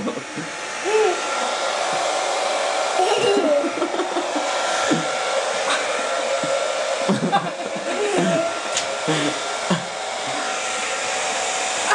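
Remington hand-held hair dryer running steadily: a rush of blown air over a steady motor whine.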